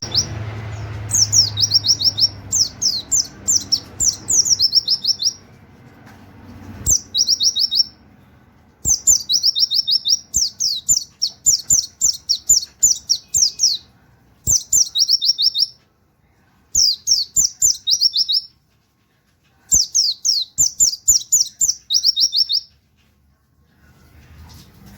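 Oriental white-eye (pleci) singing its fast 'nembak' song: rapid runs of repeated high, falling whistled notes in the canary-like 'wit wit' style, about six notes a second. The phrases last from one to five seconds, with short pauses and a few soft clicks between them.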